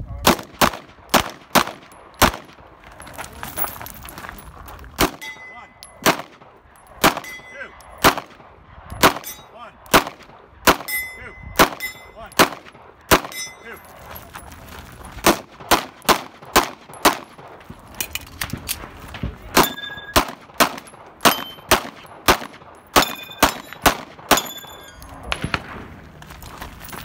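Rapid strings of pistol and rifle shots, often two or more a second, with steel targets ringing after many of the hits. There are short lulls between strings.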